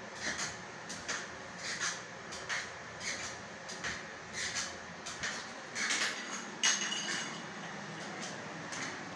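Kitchen counter food-preparation sounds: short, irregular scrapes and rustles about one or two a second, with a sharper clink that rings briefly about two-thirds of the way through.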